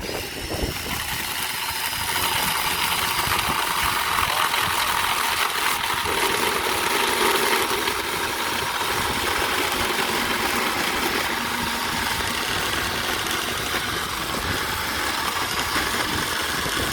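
Drill-driven chainsaw attachment running at the drill's top speed setting, its chain cutting through wood. It is a continuous, dense whirring chain noise that starts abruptly and holds steady.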